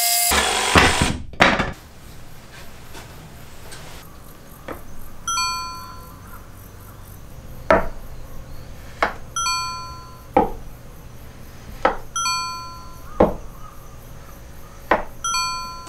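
A Makita cordless jigsaw's motor cuts off just after the start, followed by two sharp knocks. Then come sparse soft knocks with short decaying tails and, every few seconds, a brief bright ringing chime tone.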